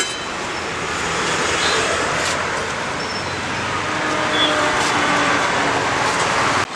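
Steady roadside traffic noise, with a few faint clicks.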